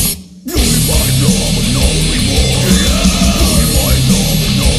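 Loud stoner rock with heavy guitars. The band cuts out for about half a second right at the start, then crashes back in.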